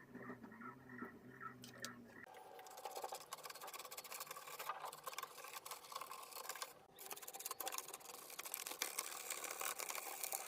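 Ant eSports MK3400 PRO V3 keyboard being cleaned: rapid, dense clicking and scratching of plastic keys and keycaps from about two seconds in. Before that there is a low pulsing hum.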